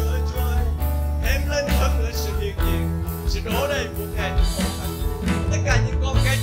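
Church worship music: a slow song with sustained bass notes, guitar and a regular beat, with a melodic line that glides like a singing voice.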